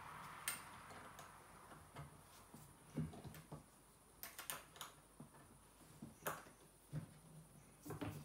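Scattered faint clicks and taps of hard plastic and wooden parts knocking together as the legs of a baby changing table are handled and fitted into its plastic base.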